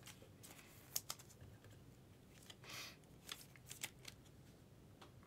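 Trading cards and their packaging being handled: a few faint clicks and one short soft rustle in the middle.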